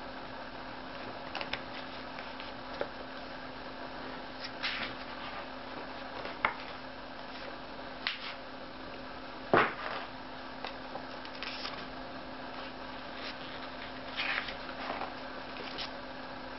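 Pages of a large hardcover book being turned and smoothed by hand: scattered short paper swishes and rustles, with one sharper snap of a page about nine and a half seconds in. A steady low hum and hiss sit under it.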